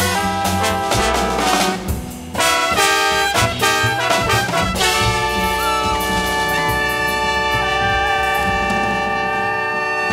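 Jazz ensemble of trumpets, trombones, alto saxophone, double basses and drums playing a busy brass passage punctuated by drum and cymbal hits. About five seconds in, the horns settle onto one long held chord.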